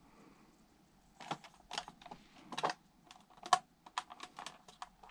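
Hands handling a model locomotive and its packaging: irregular crinkles, scrapes and clicks of protective foam wrap and plastic, starting about a second in and coming several times a second.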